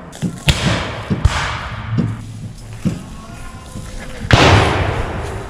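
Black-powder muskets firing: two sharp shots about half a second and a second in, then a louder shot after about four seconds that rolls away slowly.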